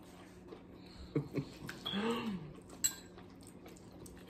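Fork and cutlery clicking lightly against plates during a meal, a few separate taps, with a short low hum from someone about two seconds in.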